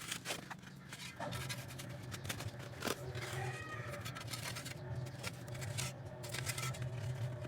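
A cat making a short mew about three seconds in, over irregular clicking and a steady low hum.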